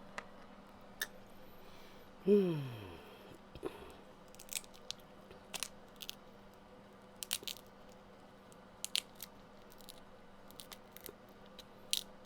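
Crab leg shells being cracked and picked apart by hand while eating, with sharp cracks and crunches scattered irregularly throughout. About two seconds in there is a short vocal sound that falls in pitch, the loudest moment.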